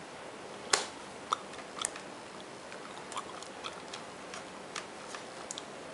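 Plastic retaining clips of a Samsung Series 3 NP350U2B ultrabook's bottom case popping loose as a flathead screwdriver pries along the seam: irregular sharp clicks, the loudest about three-quarters of a second in. The pops are the expected sign of the case coming apart correctly, not of anything breaking.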